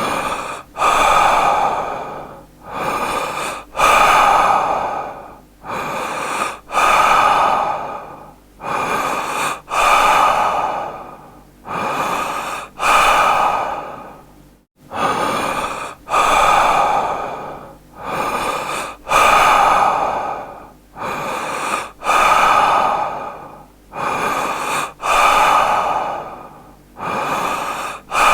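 A man breathing deeply in and out, about one full breath every three seconds. Each cycle is a shorter breath followed by a longer one that fades away.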